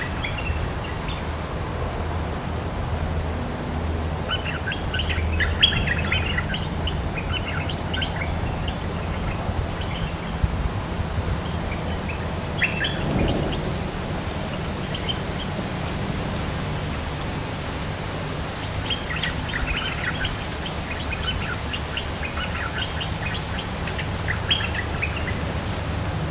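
Bulbuls calling in bouts of quick chattering notes, a few seconds apart, the calls of a caged decoy bird set out to draw a territorial wild one, over a steady low rumble.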